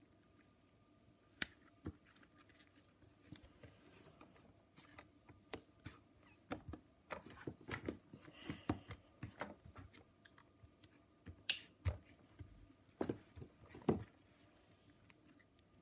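White slime being stretched, squeezed and kneaded by hand, giving irregular sticky clicks and small pops. They come thickest in the middle, with a few louder ones near the end.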